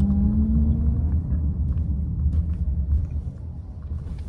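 Low road rumble of a moving car heard from inside: engine and tyre noise, with a pitched engine hum that fades out in the first second.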